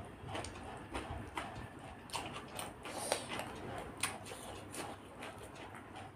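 Close-up eating sounds: chewing with soft mouth clicks and smacks, irregular short ticks a few times a second, with fingers working through rice.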